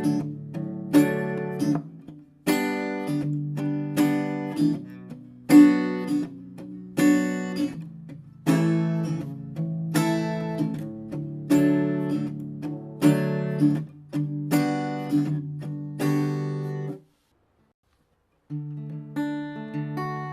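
Background music: acoustic guitar strumming chords about once a second, breaking off completely for a moment near the end before starting again.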